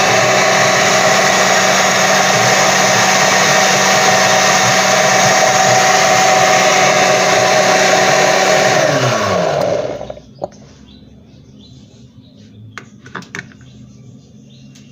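Countertop blender running steadily as it purées a thick avocado salsa, then switched off about nine seconds in, its motor pitch falling as it spins down. A few light knocks follow.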